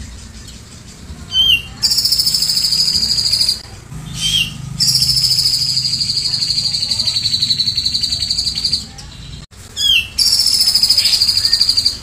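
Cucak jenggot (grey-cheeked bulbul) singing a cililin-style 'tembakan': three times, a short rising note runs into a very fast, high-pitched trill. The middle trill lasts about four seconds, and the last one is still going at the end.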